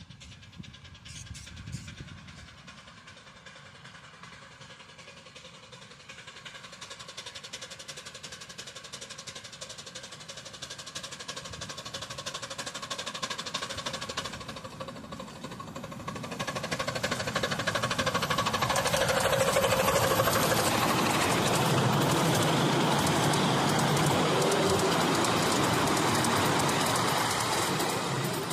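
Miniature-railway steam locomotive approaching and passing with its passenger carriages, growing steadily louder. It is loudest over the last ten seconds or so as the engine and carriages go by.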